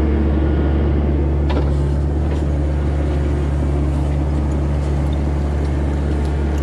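Mini excavator's diesel engine running steadily as the bucket digs out dirt and debris, with a couple of faint clicks from the digging about a second and a half in and again shortly after.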